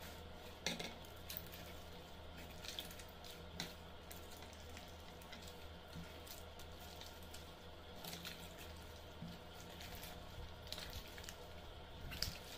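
Slime being kneaded and pressed by hand: soft sticky squelches and small wet pops at irregular moments, over a faint steady hum.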